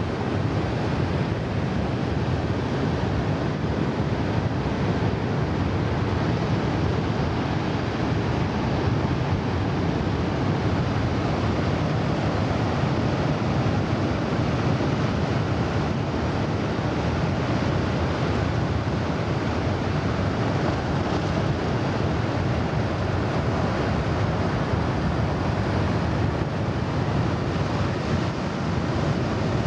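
Steady roar of breaking surf from a big typhoon swell, mixed with wind buffeting the microphone.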